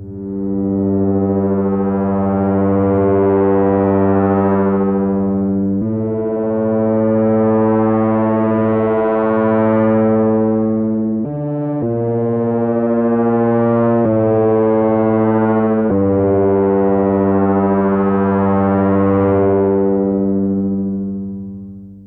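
Newfangled Audio Pendulate software synthesizer, a double-pendulum chaos-oscillator synth, playing its WhirlPad pad patch: long held low notes rich in overtones, changing pitch every five seconds or so with one brief note near the middle, fading out near the end.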